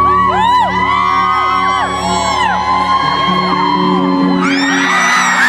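Live rock band playing, with many audience members whooping and screaming over the music. About four and a half seconds in, the sound grows fuller and brighter.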